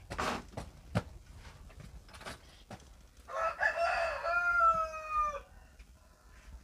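A rooster crowing once, a long call of about two seconds starting around three seconds in, dropping in pitch as it ends. A few light knocks come just before it, near the start.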